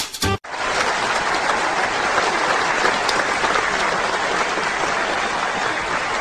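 Steady applause from a crowd, a canned sound effect. It cuts in abruptly about half a second in, as music stops.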